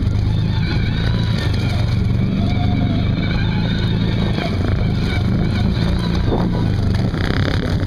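ATV engine running at a steady throttle while the quad wades through deep water.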